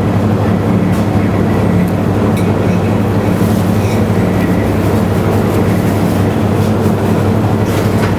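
Steady low mechanical hum of running commercial kitchen equipment such as extraction fans. A few faint light clicks of metal tweezers touching the plate come through it.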